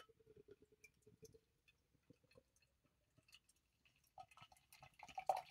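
Beer poured from a can into a pint glass: faint trickling and fizzing with small ticks. It grows louder and brighter in the last second or so as the glass fills.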